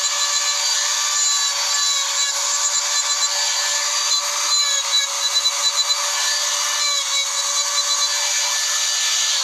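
A small handheld electric grinder runs at a steady high whine while its bit grinds engraved lines into a stone slab, with a harsh gritty hiss from the cut.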